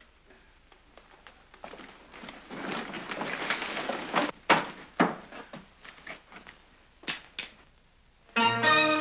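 Scattered knocks and sharp thuds over a shuffling noise, loudest a little past the middle. Near the end a small string band of violins and guitar starts playing.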